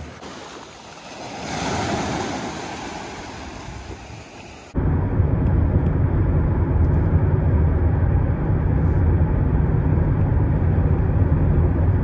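Wind and surf noise that swells and fades for a few seconds. Then comes a sudden change to the steady low rumble of a car driving at speed: road and wind noise.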